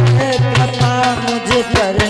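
Live Indian devotional folk music: a hand drum beats a quick rhythm, its deep bass tone bending in pitch, under a held melody.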